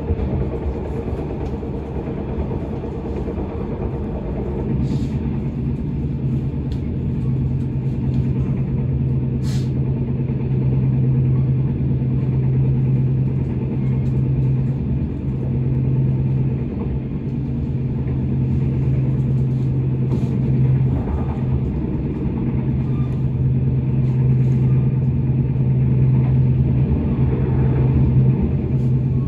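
Intercity train running along the track, heard from on board: a steady low drone and rumble, with a few faint clicks.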